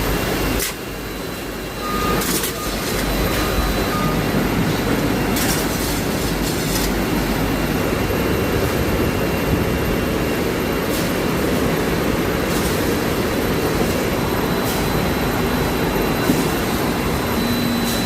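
Campa Cola bottling line machinery running at about 350 bottles per minute: a steady mechanical din with occasional sharp clicks. It dips briefly near the start, then runs louder and even.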